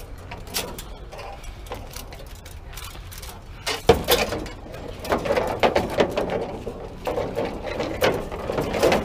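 Tangled scrap wire and thin metal strips clicking, rattling and clanking as they are dragged and shoved into a pickup truck bed, with one loud clank about four seconds in and busier clatter after it.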